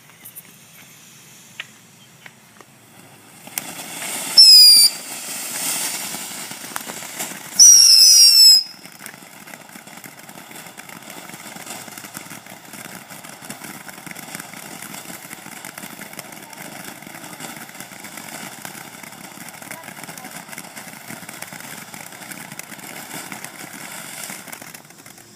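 A 'Killer Bees' firework fountain going off. It starts hissing about three and a half seconds in. Twice, around four and eight seconds in, it gives a very loud burst of shrill gliding whistles as the small 'bees' shoot up. Then it sprays with a long steady hiss that cuts off suddenly near the end.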